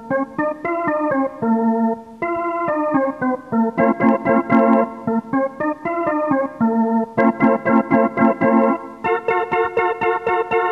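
Instrumental background music: a melody of quick notes over a steady beat, with no singing.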